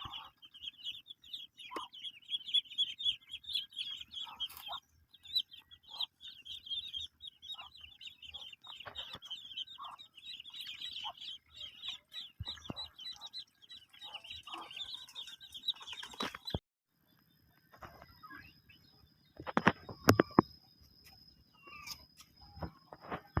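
A flock of ducklings peeping continuously in a dense stream of rapid high chirps. The peeping stops abruptly about two-thirds of the way through and is followed by a few sharp knocks.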